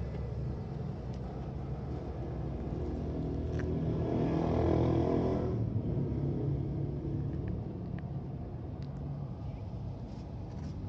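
Car engine running, growing louder for a couple of seconds around the middle as it picks up, then easing back to a steady run.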